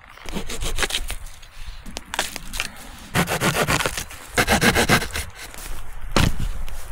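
Dry wooden branches being handled for firewood: several rough scraping and rubbing strokes of wood, each about half a second long.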